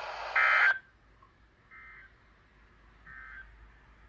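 EAS end-of-message code from a radio: three short bursts of digital data tones, each about a third of a second, spaced a little over a second apart, marking the end of the alert. The first burst is loud and the radio's hiss cuts off just after it; the other two are much fainter.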